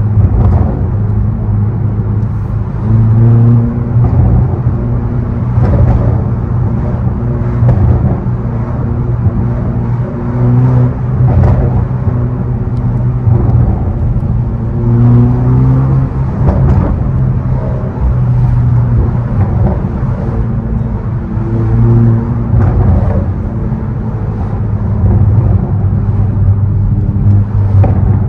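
Hyundai i30N's turbocharged four-cylinder engine running through a custom valved exhaust with the mid-resonator deleted. It makes a deep, low drone whose pitch rises and falls several times as the revs change.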